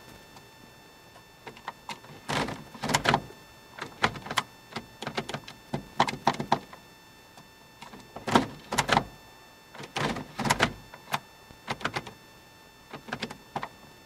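Irregular clicks and clunks from an automatic gear shifter, starting about two seconds in: the park-lock release solenoid being powered and the selector lever being worked out of park.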